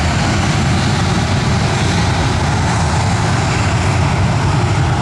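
Boeing P-8 Poseidon's twin CFM56 turbofan engines running as the jet taxis on the ground after landing: a loud, steady deep rumble with a hiss above it.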